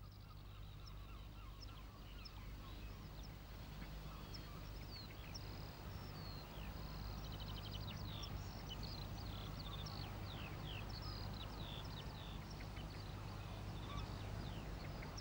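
Many birds calling at once, a busy run of short chirps and quick rising and falling notes that thickens a few seconds in, over a steady low hum.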